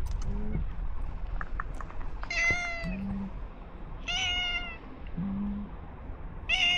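Stray cat meowing three times, each a short call about two seconds apart, the last one near the end.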